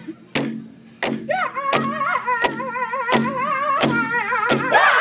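Large powwow drum struck in unison by a circle of singers with drumsticks, a steady beat about one and a half strikes a second. About a second in a high lead voice starts a wavering song line, and near the end the other singers join in louder.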